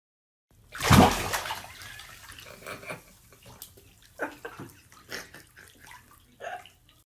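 Water splashing, loudest about a second in and fading, followed by smaller sloshes and clicks.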